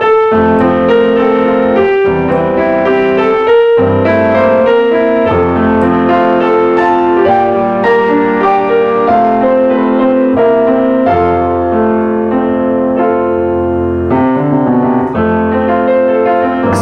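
Instrumental piano music.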